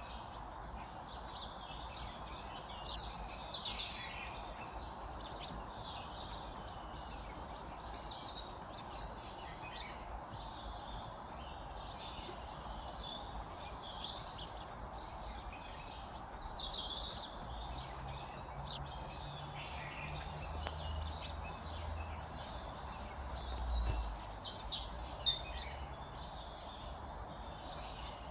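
Songbirds chirping and warbling in short scattered phrases over a steady background hiss.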